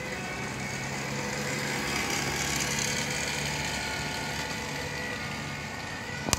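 A motor vehicle's engine running steadily with a low hum, over road noise. A brief knock comes near the end.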